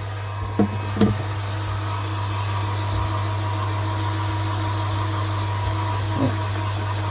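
Steady low electrical hum of running pond pumps with a constant hiss, and two light knocks about a second in.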